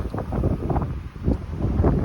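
Storm-force wind buffeting the microphone: loud, gusty rumbling wind noise that surges and dips irregularly.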